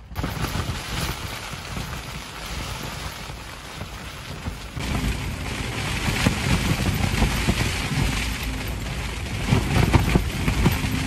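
Rain falling on the car's roof and windows, heard from inside the car, louder from about five seconds in.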